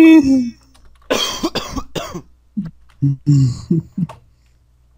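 A person coughing hard, a run of harsh coughs about a second in, followed by several short voiced bursts.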